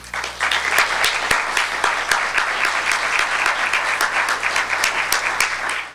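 Audience applauding, a dense, even clapping that starts right away and cuts off suddenly just before the end.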